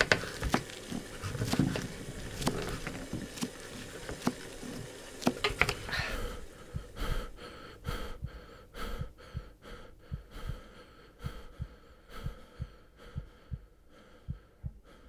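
Kitchen knife chopping zucchini on a plastic cutting board: short, sharp knocks, scattered at first, then settling into a steady rhythm of about two chops a second.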